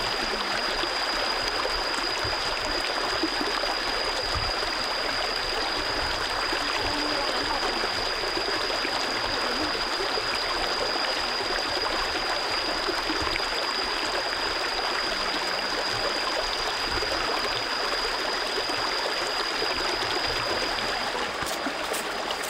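Shallow rocky stream running steadily, with a thin, steady high-pitched whine over the water noise that stops shortly before the end.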